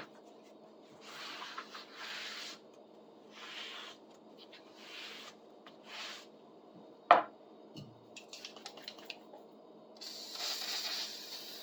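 Short hissing bursts from a WD-40 aerosol can spraying onto a wooden saw handle, five of them, then a sharp knock about seven seconds in and a few light ticks, then a longer spray near the end.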